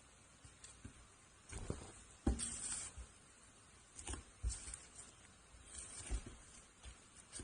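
Slime being squished and pressed by hand, giving irregular sticky clicks and short crackly pops, with a longer crackling squish about two seconds in.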